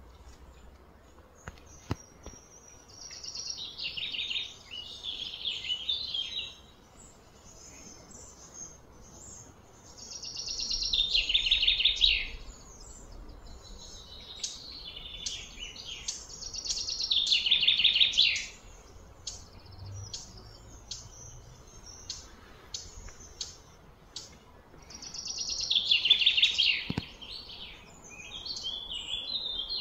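Repeated high-pitched outdoor animal calls: four long phrases, each swelling over about two seconds and then cutting off, with short chirps in between.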